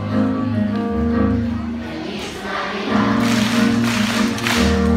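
Children's choir singing along with backing music and a steady bass line. Hand claps join in about three seconds in.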